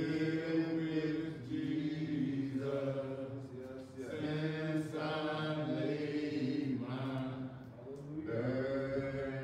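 A man's voice singing slow, long-held notes, each drawn out for a second or two with brief pauses between phrases.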